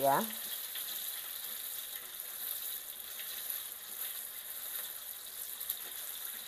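Floured chicken pieces deep-frying in hot oil in a wok: a steady sizzle as metal tongs turn the pieces.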